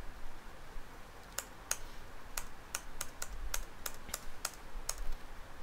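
Computer keyboard keys pressed one after another: about a dozen sharp, separate clicks, roughly three a second, starting about a second and a half in.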